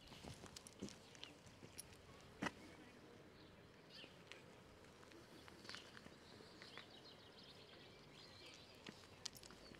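Near silence outdoors, with faint bird chirps and a few soft footstep clicks. One sharper click comes about two and a half seconds in.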